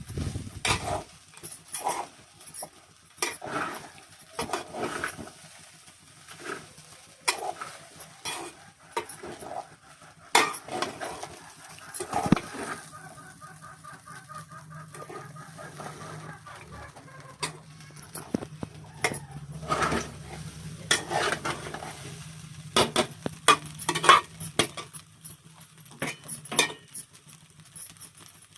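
Metal utensils clinking, knocking and scraping against a cooking pan and dishes in irregular strokes. A low steady hum runs through the middle stretch.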